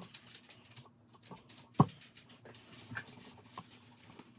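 Faint scratchy rubbing and small clicks of a plastic MacBook bezel being wiped clean by hand, with one sharp knock a little under two seconds in.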